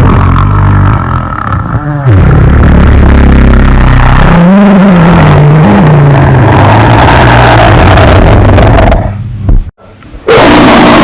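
Homemade monster sound effects for a creature called the bridge worm: loud, distorted low roaring with sliding pitch, in several pieces that cut in and out abruptly, with a brief drop out just before the end.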